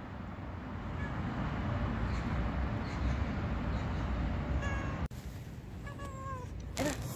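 Cat meowing, a few short meows in the second half, the clearest about a second before the end, over steady background noise.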